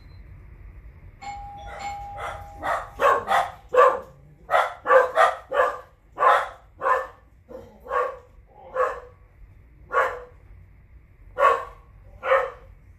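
A dog barking over and over, about sixteen short barks at uneven spacing. Just before the barks begin, a steady chime-like tone lasts about a second and a half.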